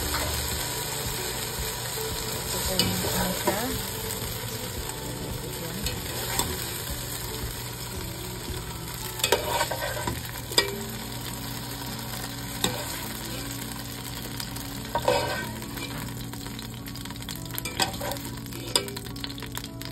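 Potato cubes frying in hot oil in a non-stick pan, the oil sizzling steadily. Over it come a few sharp clicks and scrapes as a metal mesh strainer ladle stirs and scoops the potatoes out of the pan.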